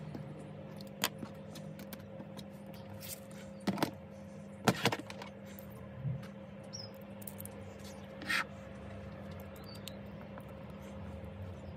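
Small metal parts of a bicycle rear derailleur clicking and tapping as it is reassembled by hand: a jockey wheel, bolts and a small tool handled, about five separate clicks with the sharpest near the middle, over a steady low hum.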